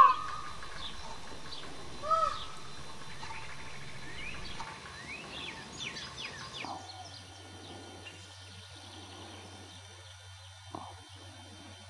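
Outdoor barnyard ambience: a short, loud animal call about two seconds in, with small birds chirping after it. About six and a half seconds in, the outdoor sound cuts off, leaving a faint steady hum.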